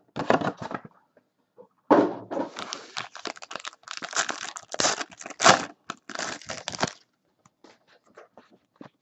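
Foil wrapper of a Panini Prizm basketball card pack being torn open and crinkled by hand. There is a short rustle at the start, then a long stretch of tearing and crinkling from about two to seven seconds in, then a few faint crackles.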